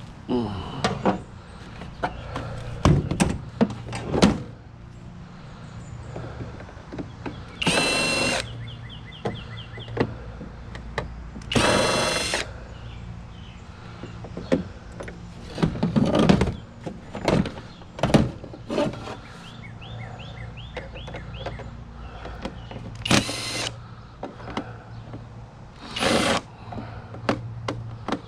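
Handheld power drill run in five short bursts of about a second each, with knocks and clicks of work between the bursts and a steady low hum underneath.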